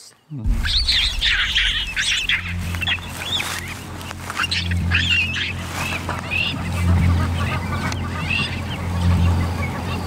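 Birds calling from the bush, many short chirps and honking calls overlapping, over a steady low drone that swells and fades; both start abruptly about half a second in.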